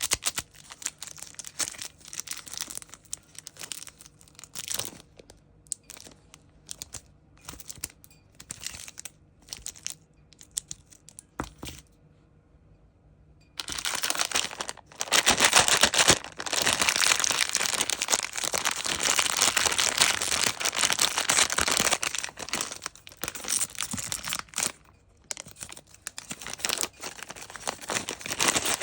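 Sweet packaging being crinkled and torn open by hand: scattered short crinkles at first, a brief pause about twelve seconds in, then a long stretch of loud, continuous crinkling and rustling that thins out again to short crinkles near the end.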